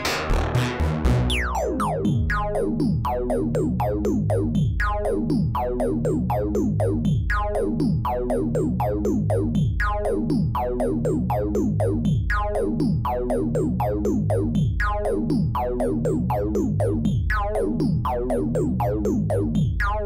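Waldorf Blofeld wavetable synthesizer playing a fast arpeggio of short notes, about four a second, each with a quick falling sweep. The timbre shifts about a second in as the oscillator's wavetable is switched.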